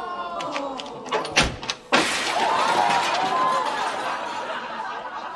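A sharp thud about a second and a half in, then a loud crash at about two seconds as more of the wrecked wooden wall and debris falls, with a clattering spread after it. Many overlapping audience voices react around it.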